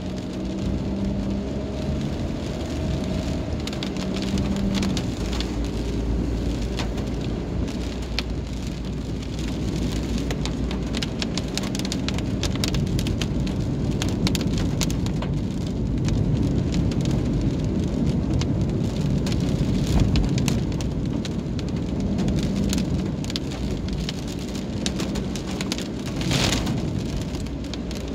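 Rain falling on a car's windshield and body, heard from inside the cabin: many single drops ticking over a steady low rumble of tyres on wet asphalt, with one sharper hit near the end.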